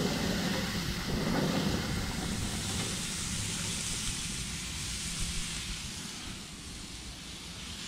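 Oil-coated sliced mushrooms and onions tipped onto a hot perforated nonstick pan on a preheated gas grill: a steady sizzling hiss over a low rumble, easing slightly toward the end.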